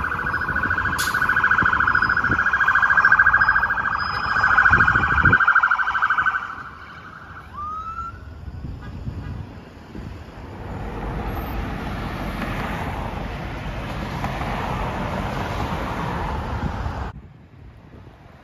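Police siren sounding a fast warbling yelp, loud for about the first six seconds. It is followed by a single short rising whoop, then the rush of passing road traffic, which cuts off abruptly near the end.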